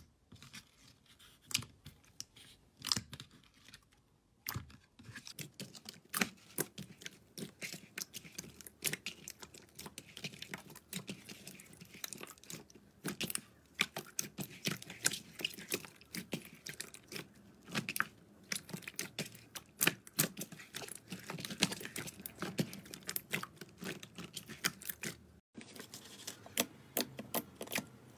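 Slime being poked, stretched and squeezed by hand, making a dense run of wet clicks and pops, sparse at first and crowding together after about five seconds. A brief silence near the end.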